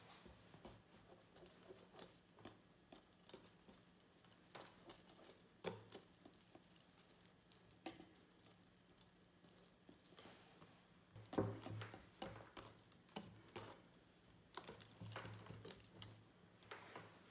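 Wire whisk stirring flour into pumpkin loaf batter in a glass bowl: faint wet scraping and stirring with scattered clicks of the wires against the glass, busiest about two-thirds of the way through.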